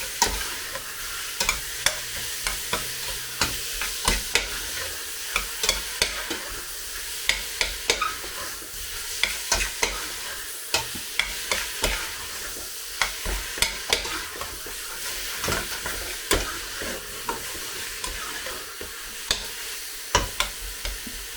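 Chicken frying in olive oil in a pan, a steady sizzle, with frequent sharp knocks and scrapes of a utensil stirring it against the pan.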